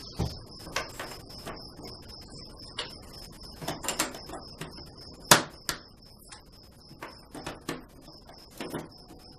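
Small wooden pickup bobbin tops clicking and knocking against a plastic pickguard and the wooden workbench as they are handled and test-fitted into the pickup slots. The taps are scattered and irregular, with one sharper knock a little past the middle, over a faint steady high whine.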